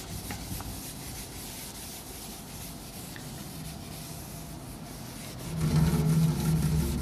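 Whiteboard duster wiping marker writing off a whiteboard: a steady rubbing that grows louder about five and a half seconds in.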